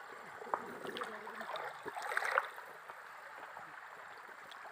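Shallow river water gurgling and burbling close to the microphone, with a few louder swells about half a second, a second and two seconds in.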